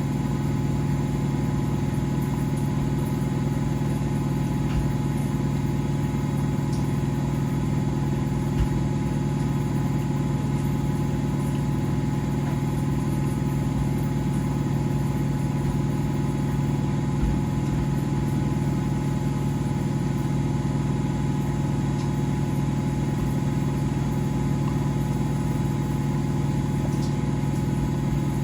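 Domestic washing machines and tumble dryers running together: a steady low motor hum with a couple of faint knocks.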